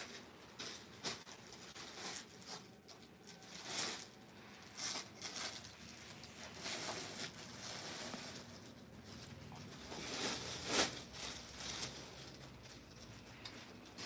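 Cloth rustling and swishing in irregular bursts as a printed khadi suit fabric and a soft shawl are handled and spread out. The loudest rustle comes about eleven seconds in.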